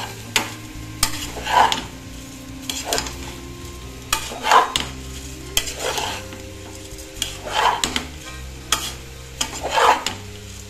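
A steel ladle stirring and scraping basmati rice and vegetables around an aluminium pressure cooker, about eight scraping strokes roughly a second or so apart.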